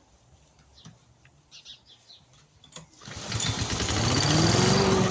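Victa lawn mower engine starting about three seconds in, its pitch climbing for about a second and then settling into a steady run: the restored mower running.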